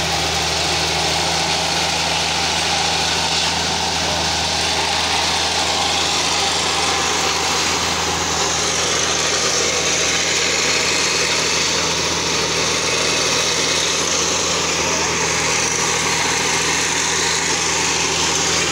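Plasser & Theurer track tamping machine running steadily, a constant diesel hum with an even hiss over it.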